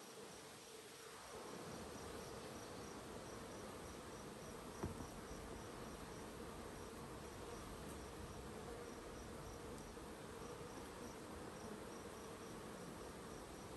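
Honeybees buzzing steadily around an opened hive, a low hum from a stirred-up colony worked without smoke. A single sharp knock sounds about five seconds in, and a faint high ticking repeats about three times a second.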